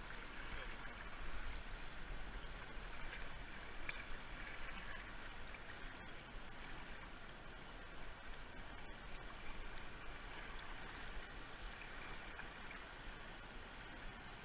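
Swift river current washing around a canoe's bow: a steady rush of moving water.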